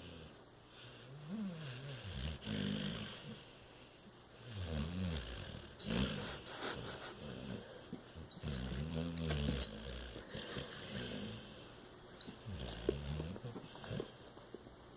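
Bulldog snoring in deep sleep: a run of about seven snores, roughly two seconds apart, each rising and falling in pitch. A few sharp clicks come in the middle.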